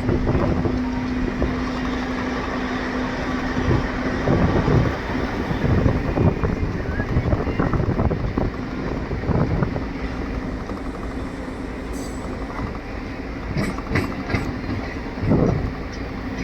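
A DEMU train running along the track, heard from inside the coach: a steady rumble of wheels on rails under a droning hum that fades about four seconds in, with a few louder thumps at irregular intervals.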